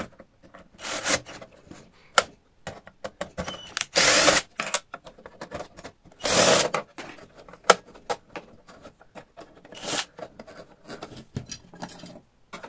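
Cordless drill-driver driving screws back into the plastic carry handle of a small inverter welding machine. It runs in four short spurts of about half a second each, the two in the middle loudest, with small clicks and knocks of handling in between.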